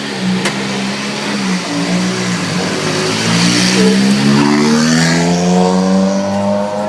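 Rally car engine running at low revs, then accelerating with its pitch climbing steadily through the second half.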